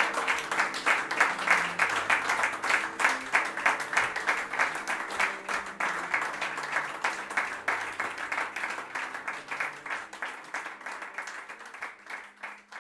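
Audience applauding, dense and irregular clapping over a faint low sustained tone, gradually fading out toward the end.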